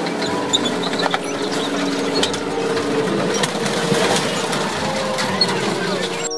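Tank engine running as the tracked tank climbs onto and crushes a minivan, with clanking tracks and clicks of crunching metal over the steady engine noise. The sound cuts off abruptly near the end.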